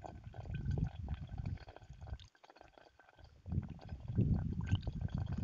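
Water gurgling as it is poured from a plastic bottle into a football through its narrow valve. It comes in two spells with a short pause about two seconds in.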